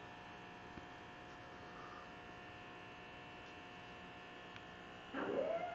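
Steady electrical hum. About five seconds in, a dog lets out a short vocal sound whose pitch rises and then levels off.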